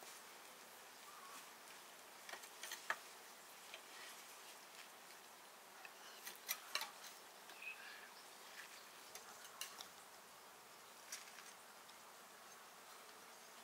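Near-silent background with a few faint, scattered clicks and taps, a small cluster about two and a half seconds in and another about halfway through.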